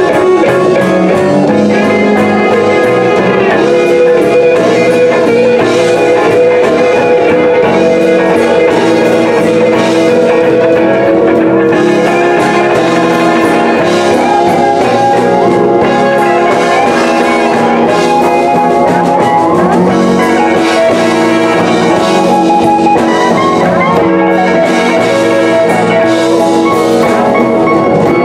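Live blues band playing an instrumental passage with no singing: electric guitars over drums and bass, with bent, gliding guitar notes.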